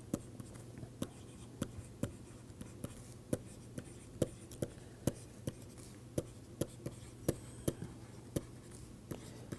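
Stylus writing on a digital pen tablet: short, irregular clicks and taps of handwriting strokes, about two or three a second, over a faint steady low hum.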